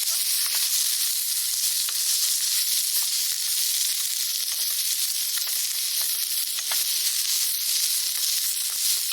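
Food frying in a pan: a steady sizzle with occasional small pops.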